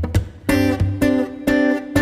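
Background music: acoustic guitar strummed in a steady rhythm, a chord about every half second.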